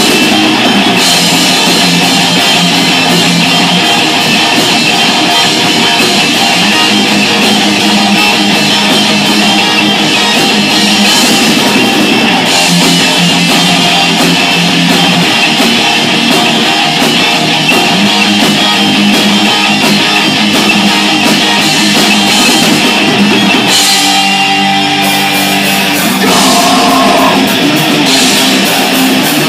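Heavy metal band rehearsing: two distorted electric guitars through Crate and Marshall amps play riffs over a Pearl drum kit, loud and continuous. Near the end the cymbals drop out for a few seconds while the riff changes, then the full band comes back in.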